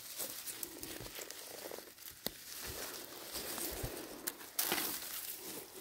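Faint rustling and handling noise with a few sharp clicks as wild mushroom stems are trimmed with a knife.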